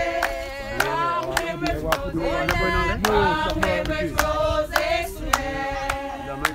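Mourners singing a slow hymn together, with notes held and gliding, and handclaps keeping time about twice a second.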